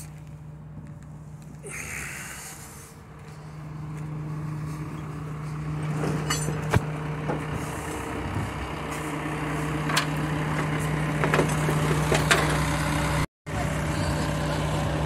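Jerr-Dan flatbed tow truck running steadily while its winch hauls a Pajero up the tilted steel bed. The hum grows louder a few seconds in, with a few sharp metallic clanks as the vehicle comes onto the bed, and the sound cuts out briefly near the end.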